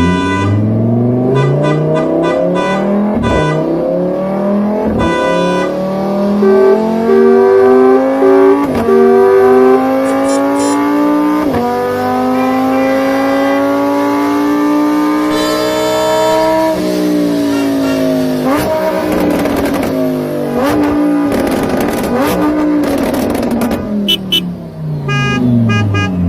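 Car engine accelerating through the gears, its pitch climbing and dropping sharply at each of several shifts. It winds down about two-thirds of the way through, then revs up again.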